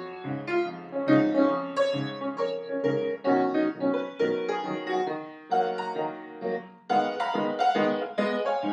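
Piano music: a quick run of separate notes, several a second, with chords.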